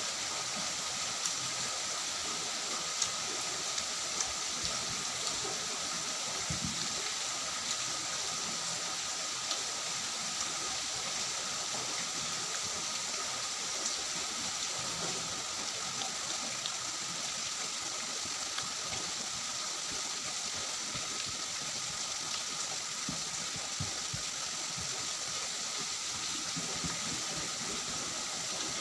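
Steady, even hiss with a faint steady tone in it. Over it come faint scattered clicks and squishes from a hand mixing rice and curry on a steel plate.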